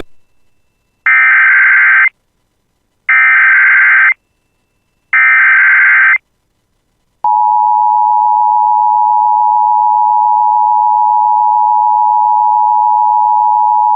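Emergency Alert System SAME header: three one-second bursts of buzzy digital data tones, about two seconds apart, encoding a new tornado watch alert. A steady, loud attention tone starts about a second after the last burst and holds.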